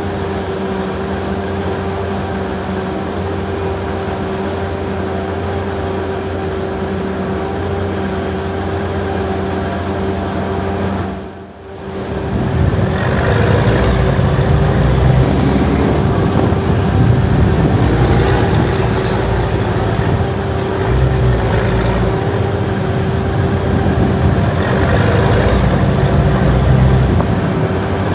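Heavy diesel farm machinery running steadily, with a steady high whine over the engine note. After a cut about eleven seconds in, it is louder and rougher.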